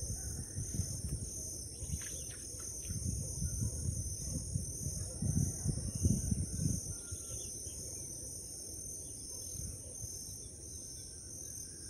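Outdoor ambience: gusty wind rumbling on the microphone, strongest about five to seven seconds in, over a steady high chirring of insects, with a few faint bird calls near the end.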